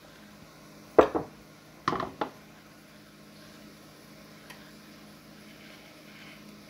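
Cookware knocking on a glass-top electric stove as the frying pan is handled: one sharp knock about a second in, then a quick double clunk a second later. A faint steady hum runs underneath.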